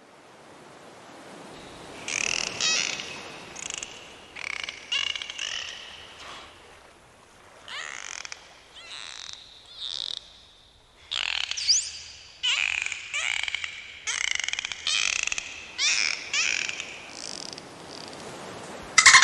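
Dolphins calling: a run of short, squeaky chirps and whistles, some sliding up or down in pitch, with a few buzzy click trains, over a steady low hiss. The calls start about two seconds in, with a short pause a little after halfway.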